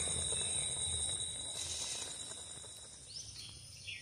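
Cucumber and sugar syrup bubbling at a rolling boil in a metal pot, with crickets trilling steadily for the first second and a half. Near the end a few birds chirp.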